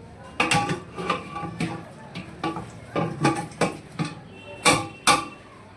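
Metal ladle knocking and scraping against a large cooking pot, about a dozen sharp ringing clanks in quick succession, while masala is stirred and fried.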